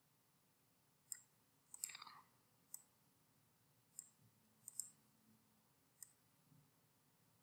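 Computer mouse buttons clicking faintly, about six irregular clicks over several seconds as on-screen shapes are selected and dragged.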